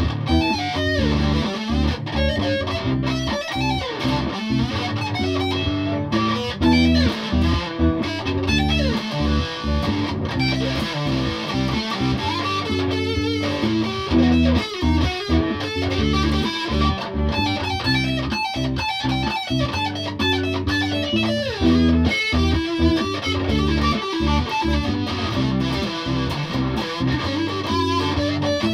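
Electric guitar played through an amp in a continuous jam, with notes and riffs changing quickly.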